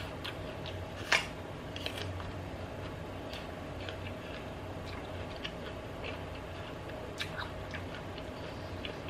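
A person chewing a bite of apple: scattered crunches and mouth clicks, the loudest about a second in, over a steady low background hum.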